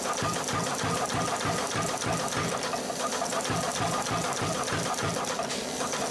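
Big Blu pneumatic power hammer running steadily, its ram striking a hot 1-inch round bar on the dies in a steady run of light blows, about three a second. The light blows clean up the forging once the bar is below forging heat.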